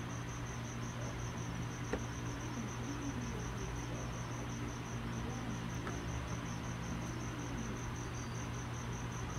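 A cricket chirping steadily, an even train of high pulses about five a second, over a low steady hum. There is one light click about two seconds in.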